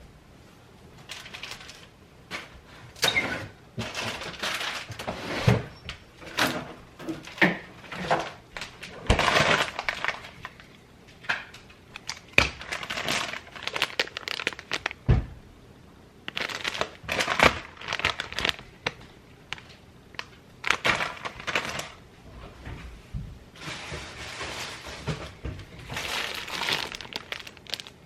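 Irregular kitchen clatter: sharp knocks and clinks mixed with short spells of crinkling, rustling and scraping, as food is handled and prepared.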